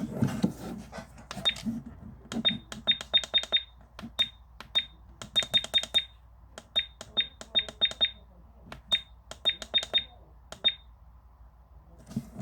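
Electronic device buttons being pressed over and over, each press a click with a short high beep, in quick uneven runs of two to five, about twenty in all.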